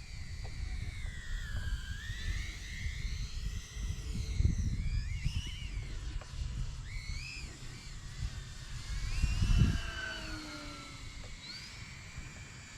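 Electric motor and propeller whine of a radio-controlled aircraft in flight, its pitch rising and falling as the throttle and distance change. Wind buffets the microphone with a low rumble that swells twice.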